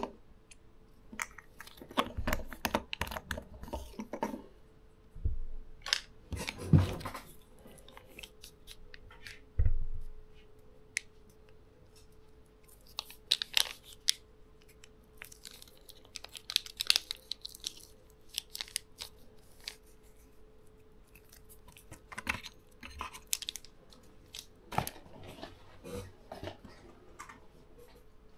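Irregular clicks, crinkles and scrapes of a liquid cat-treat tube being handled and squeezed and the treat mixed in a small metal tin lid, with a few louder knocks. A faint steady hum runs underneath.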